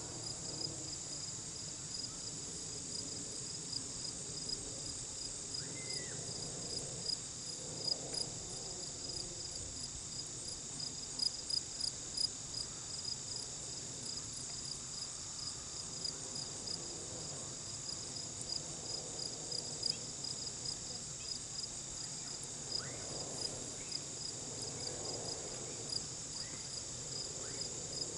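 Steady chorus of insects in the grass, a high rapid pulsing trill over a steadier high hiss. A few light knocks and clicks stand out, loudest about eleven to twelve seconds in.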